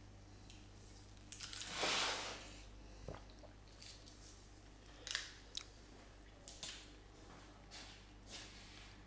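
Light handling sounds at a kitchen counter over a steady low hum: a brief rustle about two seconds in, a knock just after three seconds, then a few scattered clicks and taps.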